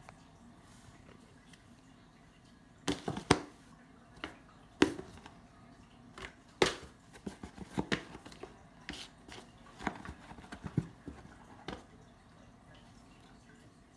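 A cat pawing and batting at a cardboard shoebox: irregular sharp taps and knocks on the cardboard, some in quick pairs, starting about three seconds in.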